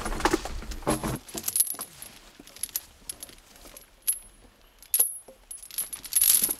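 Iron drag chains clinking and rattling as they are hooked around a felled log for an elephant to haul, with sharp metallic clinks scattered throughout.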